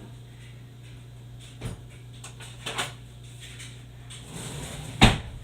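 Objects being handled: a few light knocks and clicks, a rustling scrape, then a sharp knock near the end, over a steady low electrical hum.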